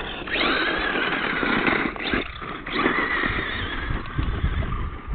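Radio-controlled truck driving fast across sand, its motor running high and wavering in pitch, with brief dips about two and four seconds in.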